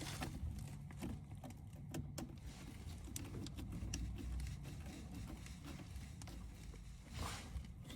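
Scattered small clicks and handling noises of low-voltage wires being worked into the terminals of an HVAC control board, over a steady low rumble, with a brief rustle near the end.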